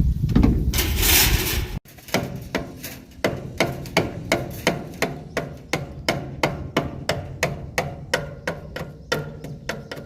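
Rhythmic strikes of a tool on wood or bamboo, about three a second, each knock ringing briefly. It is preceded by a loud rushing noise that cuts off abruptly about two seconds in.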